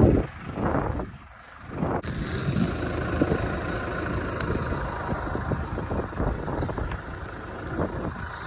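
Motor vehicle engine running steadily, after a sharp click about two seconds in.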